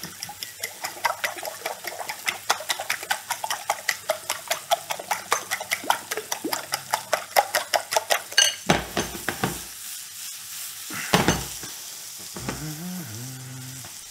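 Eggs being beaten with a fork in a ceramic bowl: rapid, even clicking strokes, about five a second, over the steady sizzle of mushrooms and garlic frying in butter and oil. The beating stops about eight seconds in, and a couple of dull knocks follow while the frying goes on.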